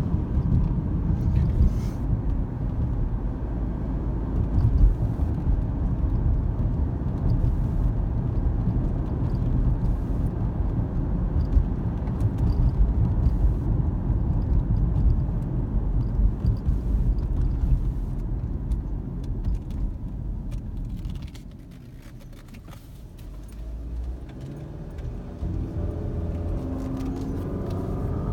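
Car driving, heard from inside the cabin: steady rumble of tyres on the road and engine. About two-thirds of the way through it drops quieter for a few seconds as the car slows, then picks up again with the engine note rising as it pulls away.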